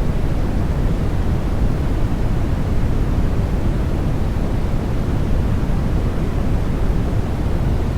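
Continuous baby-sleep white noise: an even, unchanging rushing hiss, heavier in the low end than the high.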